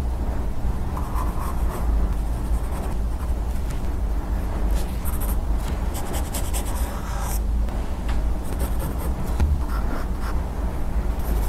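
Graphite pencil scratching on paper in short sketching and shading strokes, in clusters, over a steady low rumble.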